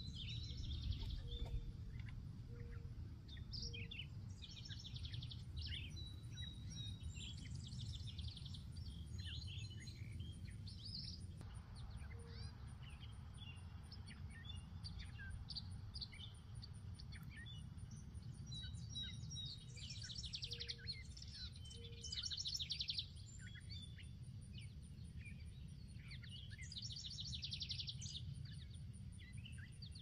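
Several songbirds chirping and singing, with a few fast trilled phrases near the middle and toward the end, over a steady low rumble of breeze.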